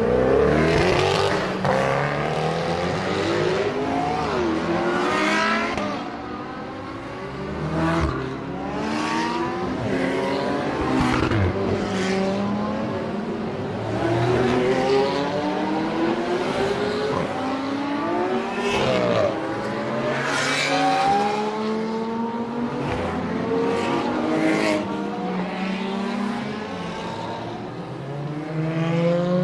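Several high-performance sports car engines accelerating together on a race track, each revving up and shifting gear again and again, so that many rising notes overlap and break off.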